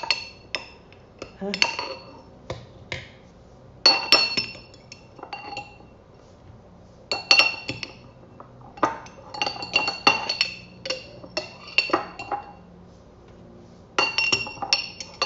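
Glass or ceramic dishes clinking and knocking together in short clusters, each clink ringing briefly, as dishes are handled from the cupboard.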